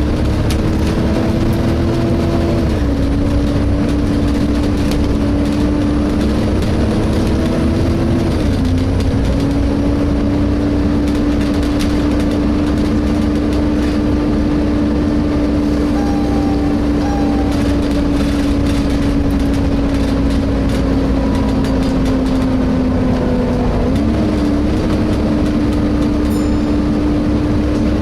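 Inside a Volvo B7TL double-decker bus on the move: the engine's cooling fan gives a steady hoover-like whine over the low running rumble. The whine's pitch drops in steps twice in the first third and rises again near the end.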